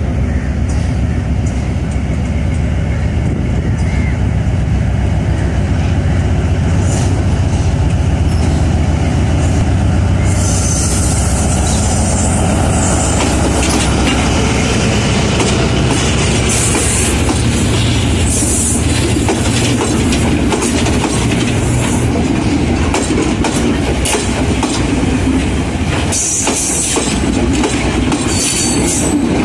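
Sri Lanka Railways Class M5C Hitachi diesel-electric locomotive, repowered with a Caterpillar 3516 V12, passing at low speed with a steady low engine drone. Its passenger coaches follow, with wheel clatter over the rail joints and brief high-pitched wheel squeals several times in the second half.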